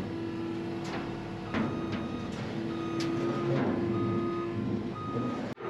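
Skid steer's engine running with a steady hum, with a few sharp metal knocks and a high beeping alarm sounding on and off in the second half.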